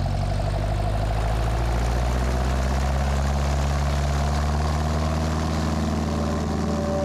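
Cessna 172's piston engine and propeller running steadily.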